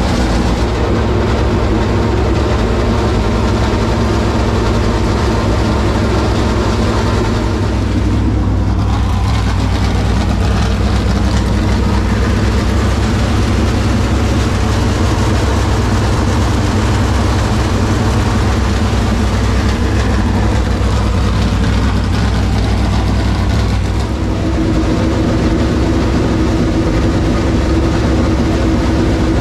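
Freshly swapped 445-cubic-inch Chevrolet SB2 V8 in a dirt Super Late Model, running steadily at idle on its first run since the dyno. Its note shifts a little about 8 seconds in and again near the end.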